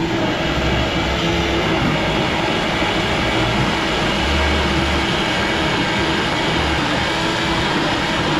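Electric blender running steadily, blending a coconut smoothie with ice.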